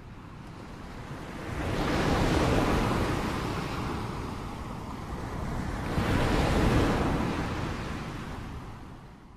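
Ocean surf: two waves breaking and washing in, swelling to a peak about two seconds in and again about six and a half seconds in, then fading away.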